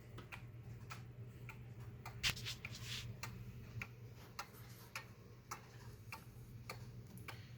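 The running movement of an early-1900s Japanese regulator wall clock, its pendulum escapement ticking steadily in faint, even clicks. There is one soft knock about two and a half seconds in.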